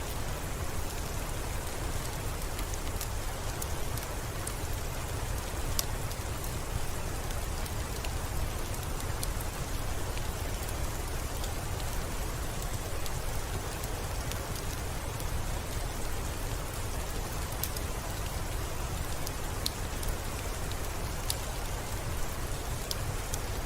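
Steady rain, an even hiss with scattered sharp ticks of single drops and a low rumble underneath.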